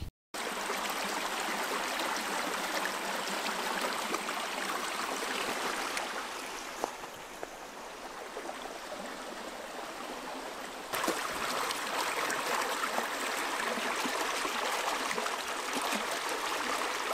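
Small, fast-moving creek: a steady rush of running water, a little louder from about 11 seconds in.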